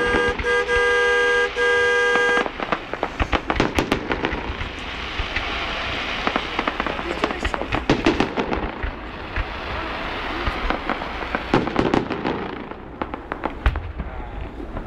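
Fireworks display: dense crackling and popping with sharper bangs scattered throughout. Over the first two and a half seconds a steady horn-like tone also sounds in three blasts.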